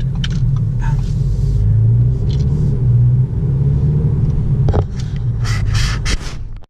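Low, steady rumble of a 2017 Audi A4 quattro heard from inside the cabin while driving: engine and road noise. Near the end there are a few short hissy noises, then the sound cuts off suddenly.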